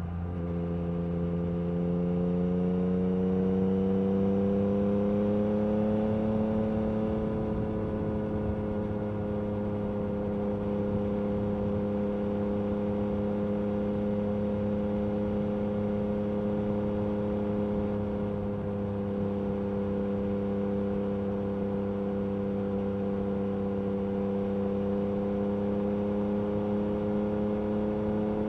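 2022 Yamaha MT-09 SP's 890 cc inline-three through an Akrapovic Carbon Racing exhaust, on the move. The pitch rises gently over the first several seconds as the bike picks up speed, then holds steady at a constant cruise.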